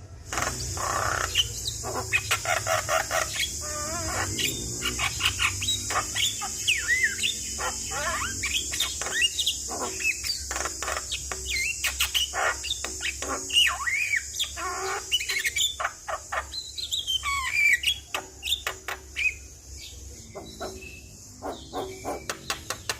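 Javan myna singing: a fast, varied stream of clicks, whistles and harsh chattering notes, over a steady high-pitched hiss.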